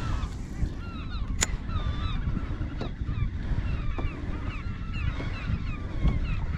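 A flock of seabirds calling over the sea: many short, harsh calls, repeating and overlapping, over a steady low rumble of wind and water.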